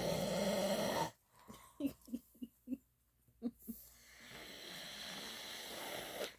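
A person snoring: a long rasping snore breath cuts off about a second in, a quick run of short puffs follows, then another rasping snore breath builds up near the end.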